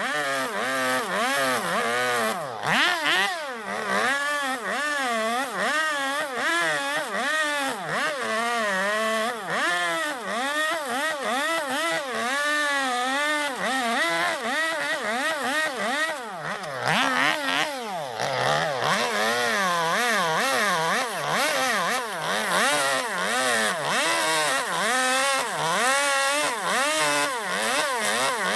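Gasoline chainsaw carving into zelkova wood, running continuously. Its engine pitch rises and falls over and over as the chain bites into the wood and eases off.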